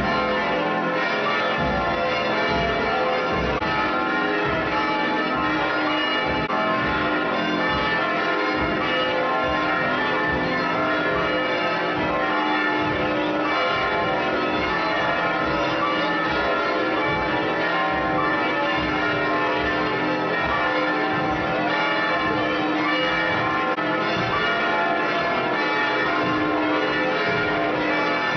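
Church bells pealing continuously, several bells ringing over one another with their tones hanging on.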